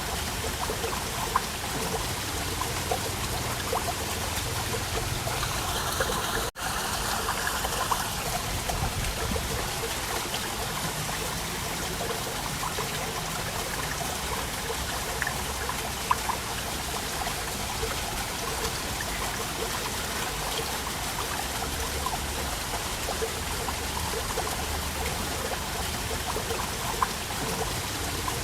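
Waterfall: a steady rush of falling water, with a sudden momentary dropout about six and a half seconds in.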